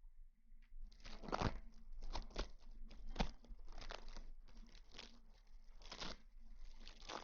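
Close-miked ASMR rustling: a run of crinkly, scratchy strokes, roughly one or two a second, starting about a second in.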